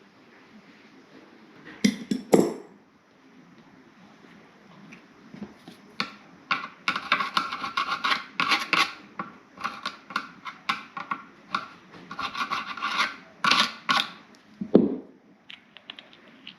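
Hand scraping and rubbing on toilet parts in quick, irregular strokes, with a couple of knocks about two seconds in and another near the end.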